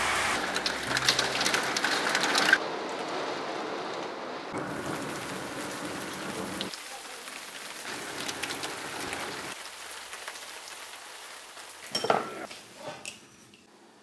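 Heavy rain falling on glass and a patio, with many close drops striking sharply in the first couple of seconds, then steadier and quieter. A brief sharp clatter about twelve seconds in.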